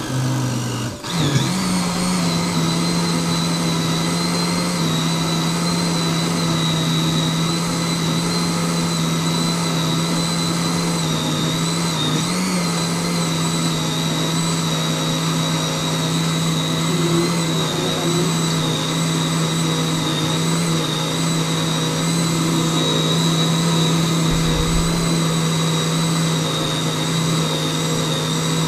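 Philips countertop blender running steadily, puréeing spinach into a thick green paste, its motor hum and high whine holding one pitch. The sound briefly dips about a second in, then runs on unchanged.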